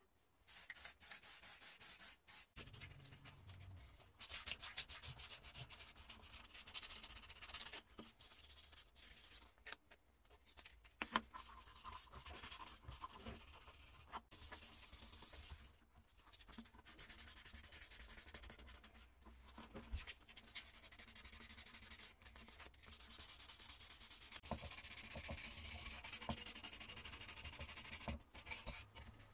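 Hand wet-sanding: 1200-grit abrasive paper with water rubbed back and forth in short strokes over the primed thin sheet-metal parts of a 1940s bicycle lamp. A short aerosol-spray hiss of primer comes about a second in.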